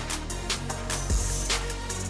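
Background music with a steady drum beat: low bass-drum thumps and sharp snare-like hits over held bass notes.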